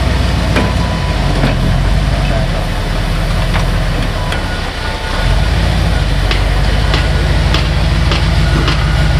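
Early Ford Bronco rock crawler's engine running at low crawling revs as it climbs over boulders. The engine dips briefly about halfway, then picks up again with more throttle. Short sharp clicks and knocks come scattered through it, more often in the second half.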